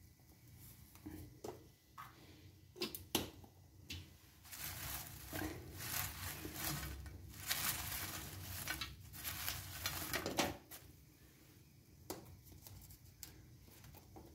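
Seasoned potato fries being tossed by hand in a black pan: a few sharp clicks and taps at first, then several seconds of dense dry rustling and scraping in the middle, and two more clicks near the end.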